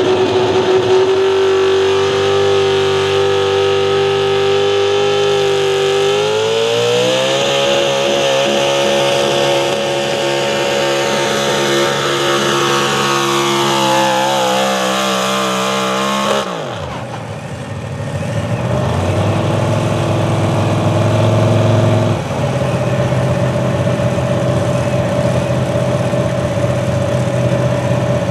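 Chevrolet Pro Stock 4x4 pulling truck's engine running at high revs under full load while pulling the sled. Its pitch steps up about six seconds in and wavers for a couple of seconds, then the throttle is let off and the engine note falls away sharply. After that it runs at a lower, steady speed, with a short rise in revs in between.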